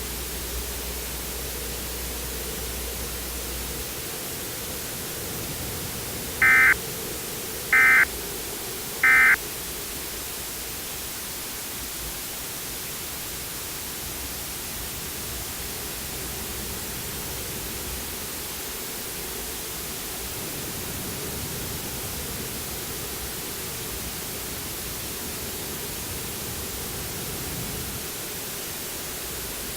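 Three short Emergency Alert System SAME data bursts, about a second and a half apart, the end-of-message code that closes an alert. They sit over a steady radio hiss that runs on without them.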